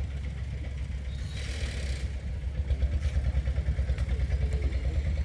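Boat engine running steadily with a low, rapid throb, and a brief hiss about a second and a half in.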